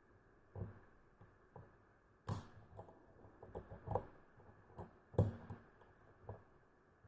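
Hook pick clicking and scraping against the pins inside a tensioned six-pin ERA nickel-plated euro cylinder: scattered faint clicks, with a few louder ones a little over two seconds in and around four and five seconds in, as pins set.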